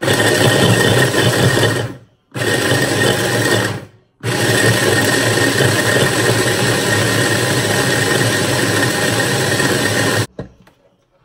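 Hand blender motor running on its chopper attachment, grinding bread into crumbs. It goes in two short runs of about two seconds each, then one long run of about six seconds that cuts off near the end.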